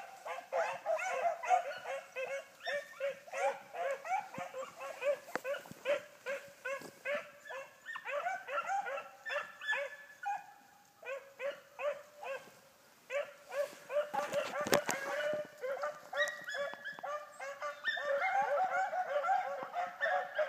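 A pack of hounds baying on a running track, many voices overlapping in a near-constant chorus. The baying thins for a couple of seconds around the middle, then picks up again, with a brief rush of noise about fourteen seconds in.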